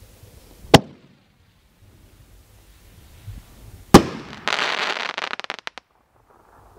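A reloadable aerial firework shell from the Excalibur kit: a sharp bang about a second in as it lifts from the mortar tube, then a louder bang about three seconds later as the shell breaks. The break is followed by about a second and a half of dense crackling from the sparkling stars, which thins into scattered pops and cuts off.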